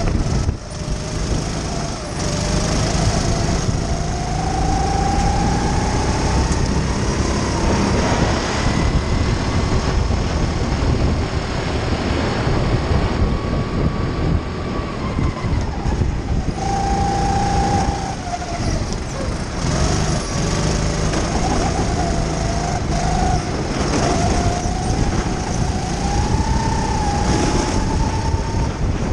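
Kart engine heard onboard at racing speed, its pitch climbing as it accelerates and dropping back as it lifts and brakes for corners, over a steady rushing noise.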